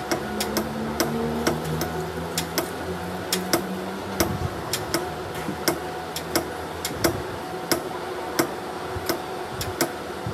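Sharp, evenly paced taps, about one and a half a second, like hammer blows on metal, over a steady hum.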